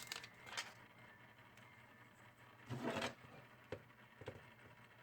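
Faint handling noises: a few light clicks, a short rasping scrape about three seconds in, then two light knocks.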